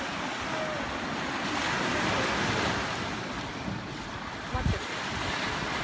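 Small waves breaking and washing up a sandy beach, a steady rushing surf that swells and eases. A short low rumble of wind hits the microphone near the end.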